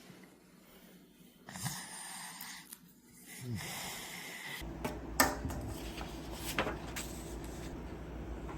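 A young child snoring in sleep, two snoring breaths in the first half. This is the obstructed breathing that the adenoid and tonsil removal is meant to treat. About halfway through, a steady low hum with a few sharp clicks takes over.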